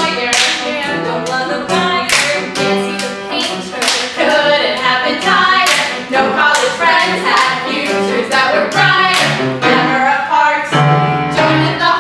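Women singing a song together, with repeated sharp percussive hits through it.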